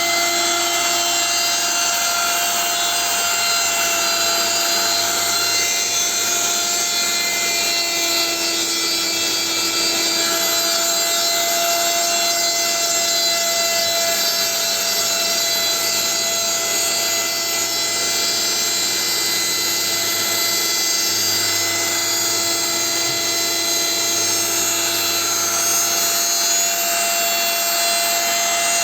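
Kraissmann 910 OFT 910 W router running steadily as the spindle of a 3018 CNC machine: a constant whine over a wide hiss.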